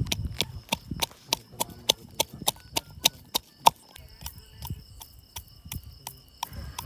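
Pestle pounding fresh ginger in a mortar into a paste: sharp knocks about four a second, thinning out and slowing after about four seconds.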